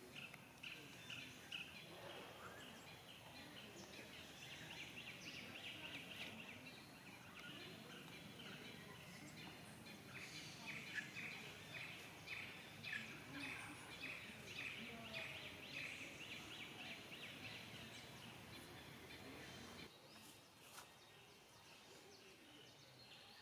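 Faint outdoor background noise with runs of short, high chirping calls repeated several times a second. The calls stop about twenty seconds in.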